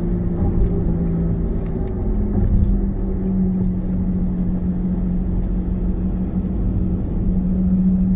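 A car driving along at road speed, heard from inside the cabin: steady tyre and road rumble with a constant low engine hum.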